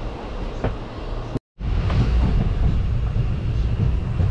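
Interior noise of a moving Indian Railways sleeper-class coach: the steady rumble of the running train on the track. A cut about a second and a half in leaves a brief gap, after which the running noise is louder.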